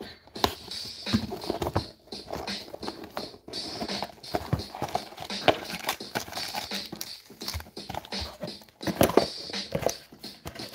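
Gloved hands handling and opening small cardboard trading-card boxes: irregular taps, knocks and rustles of cardboard and packaging, with a cluster of louder knocks about nine seconds in.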